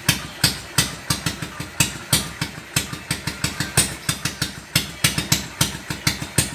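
Yamaha SR400's air-cooled single-cylinder four-stroke engine idling through a custom exhaust: an uneven, loping beat of sharp exhaust pops, several a second.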